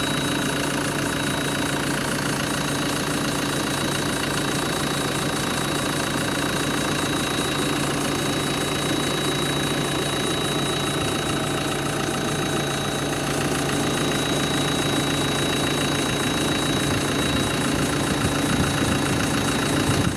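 Bobcat B900 backhoe loader's diesel engine running steadily, with a thin high whine over it. The engine grows a little louder near the end.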